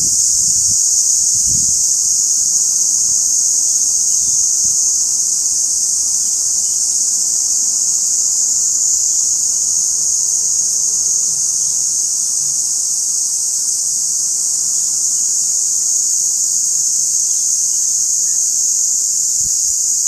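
Cicadas in full chorus: a loud, steady, high-pitched buzzing drone.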